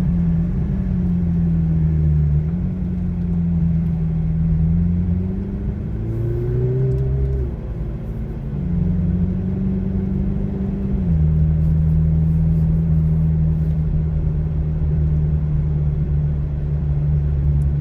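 McLaren Artura's twin-turbo V6 engine running, heard from inside the car: a steady engine drone whose pitch steps up and down several times, rises as the car pulls harder around the middle, drops back with a shift, and settles into an even drone for the last part.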